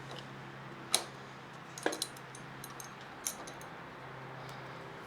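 A few sharp metallic clicks and taps from hand tools working on a motorcycle fork top cap: the loudest about a second in, another just before 2 s with a short ring, and one more past 3 s. A steady low hum runs under them.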